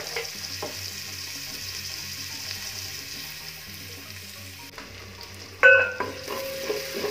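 Chopped red onions sizzling steadily as they fry in hot oil in an aluminium pot. About five and a half seconds in, a wooden spoon strikes the pot with a sharp knock that rings briefly, and the stirring begins.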